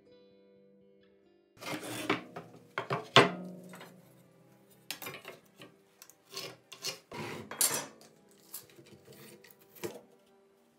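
Weathered pallet boards handled on a wooden workbench: a run of wooden scrapes and knocks as a board is pulled from the stack and laid down, the loudest knock about three seconds in, then the clatter of an aluminium square set down and shifted on the board. Quiet background music plays underneath.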